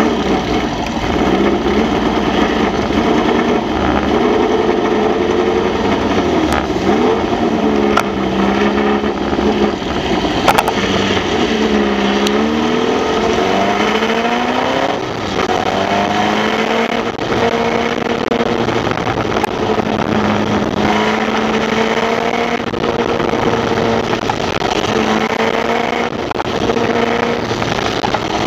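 Formula Vee's air-cooled Volkswagen flat-four engine heard from the cockpit at low revs. The engine speed rises and falls repeatedly through the first half, then holds at a steady idle. Other Formula Vee engines are running close by.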